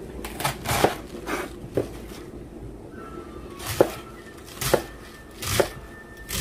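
Chef's knife cutting through a head of cabbage, each stroke ending in a knock on the wooden cutting board. About seven cuts, unevenly spaced, with a pause of about two seconds in the middle.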